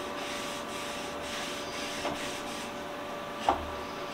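A stain-soaked cloth rag rubbing along a wooden leg in a series of quick wiping strokes, over a steady background hum. A small knock comes about two seconds in and a louder single knock about three and a half seconds in.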